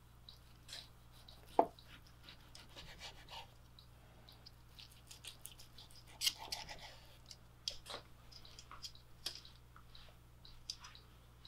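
Faint sounds of a knife slicing a seared steak on a wooden cutting board, the meat held with metal tongs: scattered small cutting crackles and tong clicks, with a knock of the blade on the board about a second and a half in.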